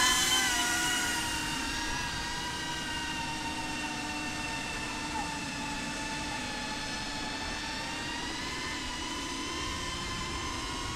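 iFlight ProTek35 FPV drone's brushless motors and ducted propellers whining at a steady high pitch in flight. It is loudest at the start and eases off over the first couple of seconds, with small shifts in pitch as the throttle changes and a slight rise near the end.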